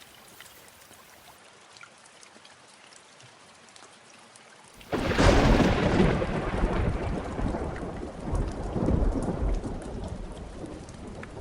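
Steady light rain, then about five seconds in a sudden crack of thunder that rolls on in a long rumble, swelling again a few seconds later and slowly fading.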